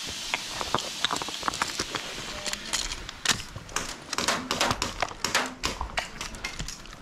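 Footsteps with the rustle and clicking of worn gear, an irregular run of sharp knocks over a rustling hiss.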